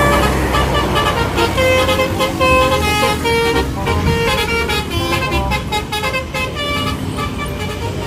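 A bus's Basuri telolet horn playing a melody of short notes at changing pitches, over a low engine rumble.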